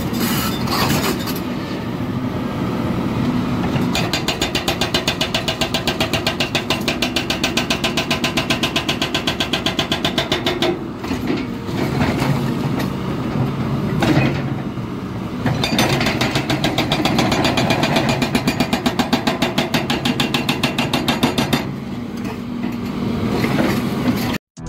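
Hydraulic rock breaker on a Volvo crawler excavator hammering rock in two long runs of rapid blows, over the excavator's diesel engine running steadily. It is splitting stone that is already cracked.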